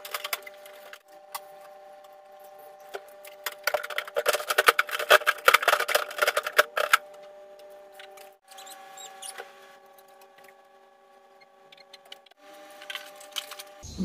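Containers and refrigerator fittings being handled and set down, a dense run of rapid clicks and knocks for a few seconds in the middle with scattered knocks either side, over a steady faint hum.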